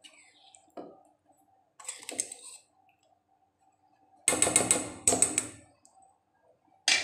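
Steel kitchen utensils clattering and scraping, a spoon against a stainless steel pan: a short scrape about two seconds in, a loud rattling clatter from about four seconds in lasting under two seconds, and another sharp clatter near the end. A faint steady hum runs underneath.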